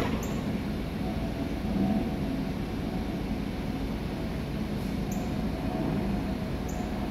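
Steady low rumble with a faint whine from an R62A subway car of a 1 train standing at the platform, its equipment running.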